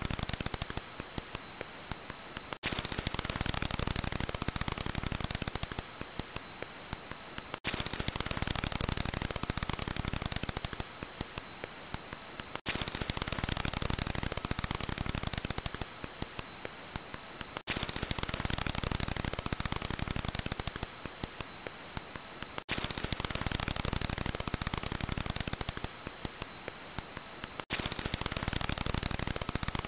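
Brown long-eared bat calls: a dense run of rapid clicking, then spaced clicks at about eight to ten a second, then a quieter stretch. The same few-second recording repeats in a loop about every five seconds, with a faint steady high tone underneath.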